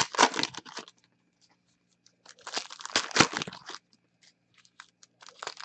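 Foil wrappers of 2017 Panini Diamond Kings baseball card packs crinkling and tearing as they are opened, with cards being handled. It comes in bursts of rustling: the loudest right at the start, a quiet gap about a second in, another burst around the middle and a shorter one near the end.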